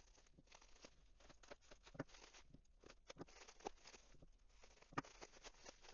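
Faint snips of scissors cutting open a bubble-wrap pouch, with scattered small clicks and crackles from the bubble wrap being handled; a few sharper clicks stand out.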